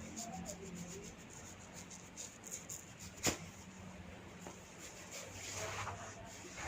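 Hands rubbing and massaging a person's head and neck, a faint scratchy friction sound with small ticks. One sharp click a little over three seconds in.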